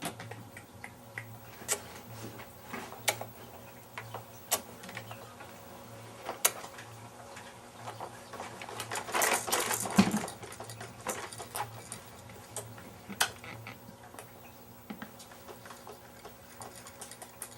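Baby making sharp clicking and smacking noises with her mouth and gums, scattered every second or two, with a longer noisy burst of mouth sound about nine seconds in.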